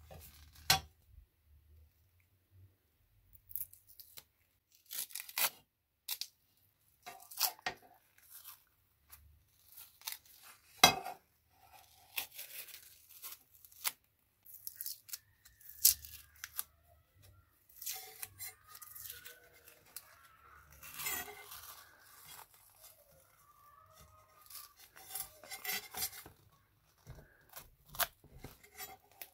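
Protective film being peeled off a steel scissor blade by gloved hands: irregular tearing and crinkling. A few sharp clicks and knocks come from the metal scissors being handled, the loudest about eleven seconds in.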